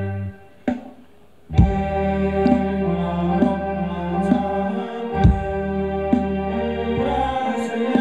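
Ramwong dance band music: sustained chords over a steady beat of a little under one per second. The music drops out just after the start and comes back in with a strong hit about a second and a half in.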